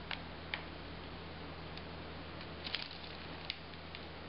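A piping bag full of royal icing being squeezed by hand, giving a few faint crinkles and soft ticks, over a steady low hum.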